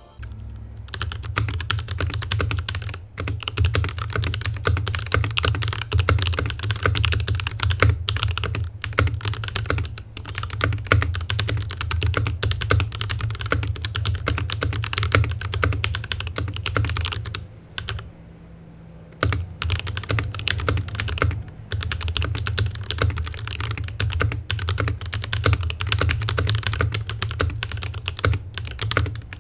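Fast typing on a Ranked Nova N60 60% mechanical keyboard fitted with Gateron Yellow linear switches: a dense, continuous run of key clacks with a deeper thud under them, pausing for about a second and a half a little past halfway before resuming.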